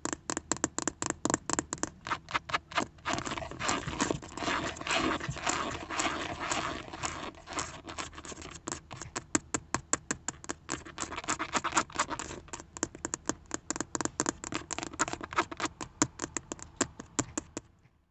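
Long fingernails tapping quickly and scratching on a Chevrolet steering wheel's textured airbag cover and bowtie emblem: rapid, uneven clicking taps with stretches of scratching in between. The tapping stops just before the end.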